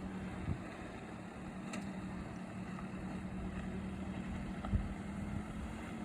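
Toyota Tacoma Trailhunter's engine running steadily at low speed as the truck crawls up a rocky 4x4 trail, with a couple of faint knocks.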